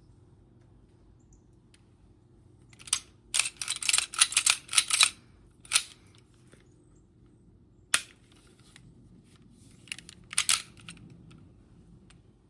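Umarex/Elite Force Glock 18C gas blowback airsoft pistol firing, with sharp cracks of the shot and slide. A quick string of shots about three seconds in, then two single shots, then a short pair near the end.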